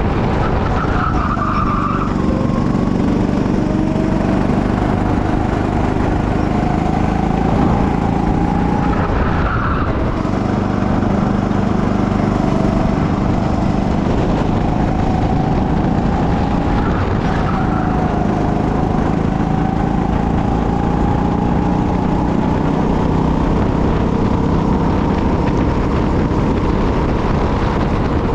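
Go-kart engine running at speed close to the microphone, its pitch climbing slowly along the straights and dropping as the kart slows into a corner about every eight seconds. Short tyre squeals come at those corners.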